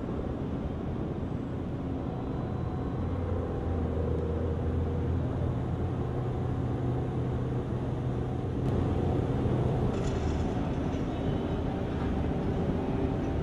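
Steady low rumble of ship engines, with a deep hum and the rush of water wash; a higher hiss joins in near the end.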